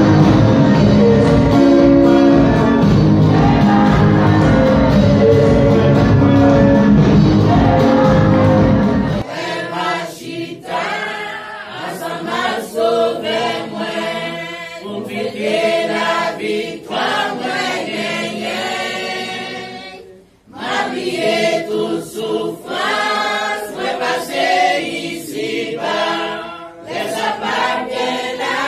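Amplified worship singing over instrumental accompaniment with heavy bass. At about nine seconds it cuts abruptly to a congregation singing a hymn unaccompanied, with a brief break about two-thirds of the way through.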